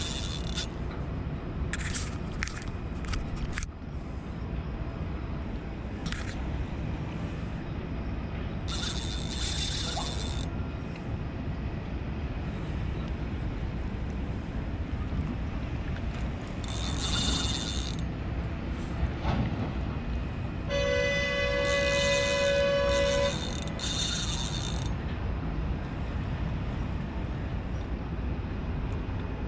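Fishing reel's drag buzzing out in about five short high-pitched bursts as a hooked barramundi runs and takes line, over a steady low rumble. A horn sounds for about two seconds a little after the middle.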